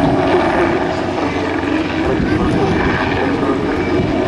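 PZL SW-4 Puszczyk light helicopter in flight: the rapid beat of its main rotor over the steady run of its single turboshaft engine, loud and unbroken.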